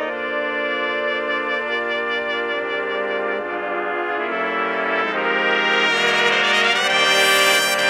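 An ensemble of eight trumpets, one player multitracked, playing sustained chords in close harmony on a slow ballad, the chord changing every second or so. The sound swells louder and brighter from about five seconds in.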